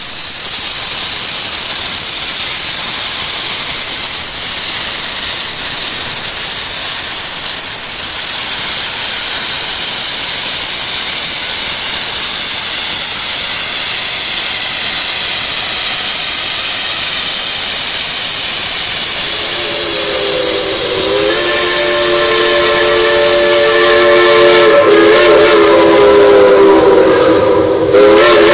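Shay geared steam locomotives venting steam with a loud, steady hiss. About twenty seconds in a chime steam whistle sounds a held chord that runs on to the end, while the hiss cuts off.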